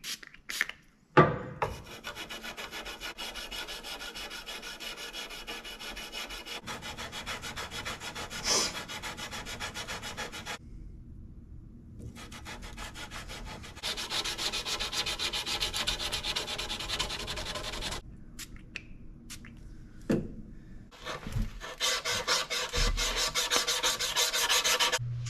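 Sandpaper rubbed by hand in fast, even back-and-forth strokes along a Damascus steel knife blade, hand sanding it at 150 grit. The strokes run in long stretches with a couple of short pauses, and there is a sharp knock about a second in.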